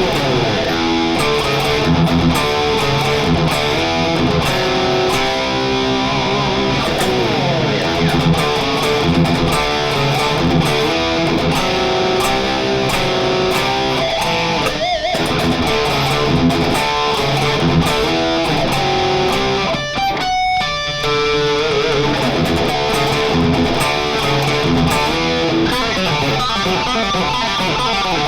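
Electric guitar playing high-gain '80s metal rhythm riffs through a Friedman BE-Mini solid-state amp, pushed by a Boss SD-1 overdrive for a tighter, chunkier distortion.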